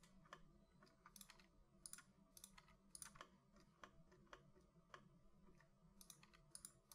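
Faint, scattered clicks of a computer mouse and keyboard being worked at a desk, irregular at about two a second.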